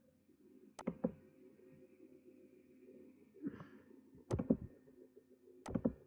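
A few sharp clicks of a computer mouse button, about a second in, after four seconds and near the end, over a faint steady hum.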